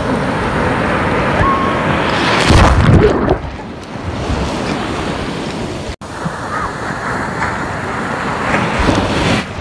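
Ocean surf breaking close by, with foaming whitewater rushing and hissing around the camera. The loudest surge comes about two and a half seconds in, and the sound drops out for an instant just after the middle.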